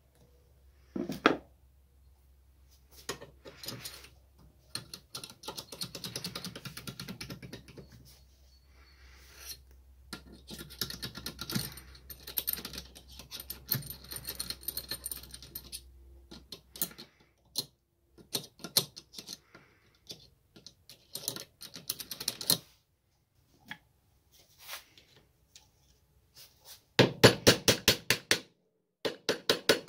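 Screwdriver tip scraping and tapping inside a machined metal turner's cube, clicking the loose nested cubes against the outer one in irregular small knocks and scratches. Near the end comes a fast run of sharp taps, several a second.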